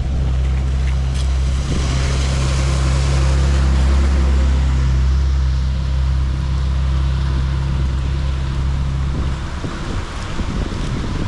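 A motor running steadily with a low hum over rushing water; the hum breaks up and fades about nine seconds in, leaving the water and rumbling.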